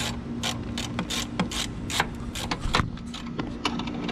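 Hand socket ratchet clicking in quick, uneven strokes, about four clicks a second, as it runs down the bolt holding a coolant expansion tank, with a steady low hum underneath.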